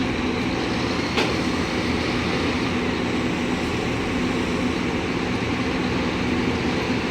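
Heavy construction machinery running steadily with a deep, even hum, and a single sharp knock about a second in.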